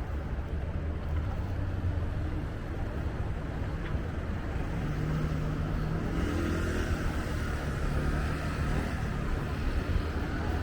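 Steady low rumble of city traffic, swelling in the middle as a vehicle passes.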